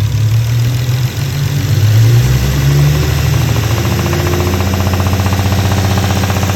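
Infiniti G35's 3.5-litre V6 engine running, briefly rising in pitch about two seconds in, then settling to a steady idle.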